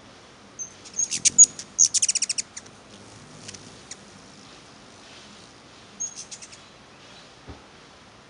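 Hummingbirds chattering as they chase each other at a feeder: rapid trains of high, sharp chips in two bursts, one about a second in and a shorter one about six seconds in.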